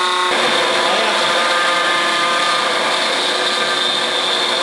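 CNC milling machine cutting aluminum: a steady machine whine with many pitched tones over cutting noise. The pitch pattern shifts abruptly about a third of a second in.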